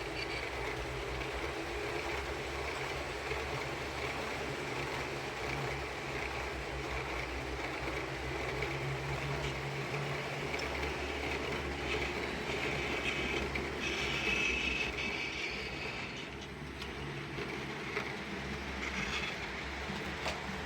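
HO scale model coal train running on the layout: a steady mechanical hum with the rolling noise of wheels on track and a few faint clicks.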